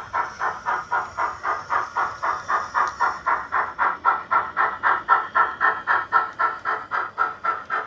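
A Hornby 'Sir William Stanier' model steam locomotive with a Youchoos DCC sound decoder, playing steam exhaust chuffs through its small onboard speaker as it runs past. The chuffs come in a quick, even beat of roughly four to five a second.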